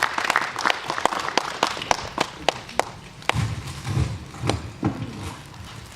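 Audience applause dying away into a few scattered hand claps, with some low thumps about three to five seconds in.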